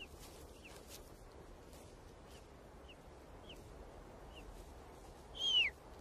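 Golden eagle chicks begging while being fed: a string of faint, short, high peeps, each slurring downward, at uneven intervals, then one louder, longer falling call about five and a half seconds in.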